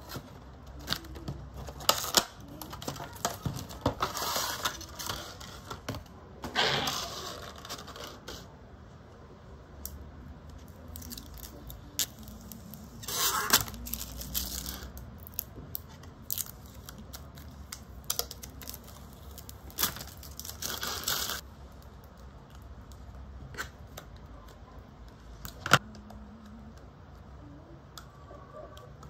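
Protective film being peeled off a clear plastic phone case in several short rasping peels, with sharp clicks and taps of hard plastic being handled in between.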